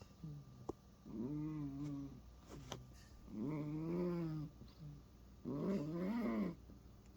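Sleeping cat snoring: a pitched snore about a second long with each breath, three times at roughly two-second intervals, the third wavering up and down in pitch.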